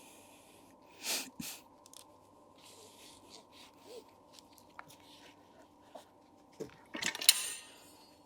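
Quiet handling noises as a strap is fitted around a wheel spoke on a tire changer: short rustles about a second in and a louder scraping rustle about seven seconds in, with small clicks between.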